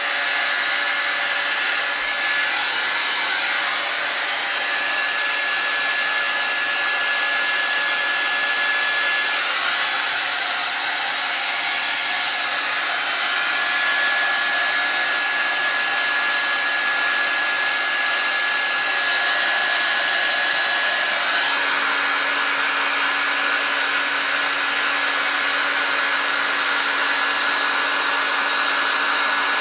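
Handheld blow dryer running on high: a steady airy rush with a faint high whine. About twenty seconds in, a low steady hum joins it.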